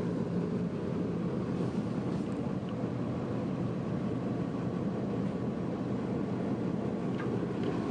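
Twin Perkins 145 hp diesel engines idling steadily, heard from inside the boat's cabin.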